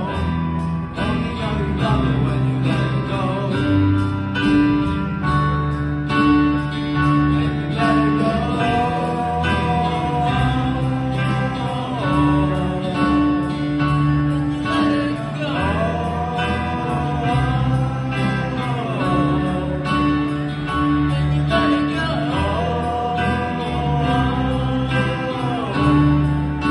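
Live band playing a song: strummed acoustic guitar, violin, drum kit and electric bass, with a sung melody line.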